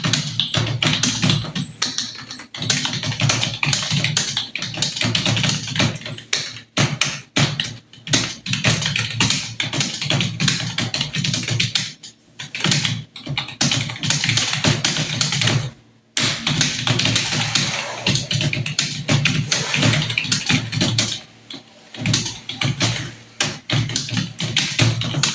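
Fast typing on a computer keyboard: a dense run of key clicks at about 80 words per minute, with a few brief pauses.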